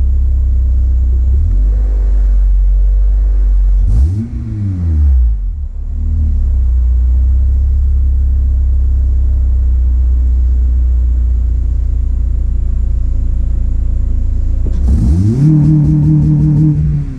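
2004 Acura RSX Type-S's K20 2.0-litre four-cylinder engine idling, blipped briefly about four seconds in, then revved and held higher for a second or two near the end before dropping back to idle.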